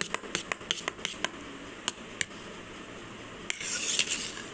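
Whipped cream being beaten by hand in a bowl: a utensil clicks rapidly against the bowl for the first second or so, taps a few more times, then gives a brief swishing scrape near the end.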